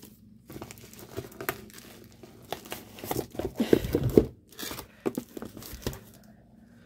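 Packaging crinkling and rustling as it is handled and pulled open, in irregular spells of rustling and small clicks that are busiest and loudest around three to four seconds in and die away about a second before the end.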